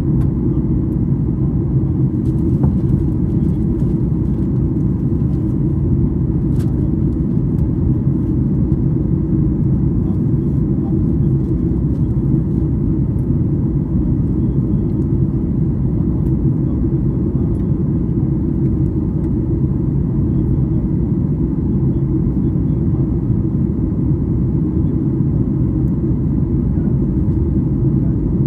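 Steady, deep cabin noise inside a jet airliner climbing after take-off: engine and airflow noise heard at a window seat, unchanging throughout.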